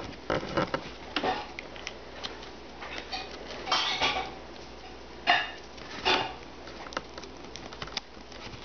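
A knife being handled and slid into its sheath: scattered clicks, taps and short scrapes of the metal blade and handle against the sheath. The loudest knock comes a little past halfway.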